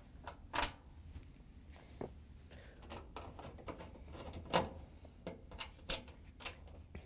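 Scattered sharp clicks and light knocks of a Phillips screwdriver and small screws against the plastic lint screen housing and metal front panel of a clothes dryer as the screws are taken out, the loudest knock about four and a half seconds in, over a faint low hum.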